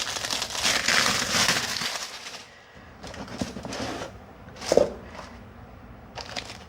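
Packaging being handled while unboxing: rustling and crinkling for about the first two seconds, then scattered small crackles and one sharp knock a little under five seconds in.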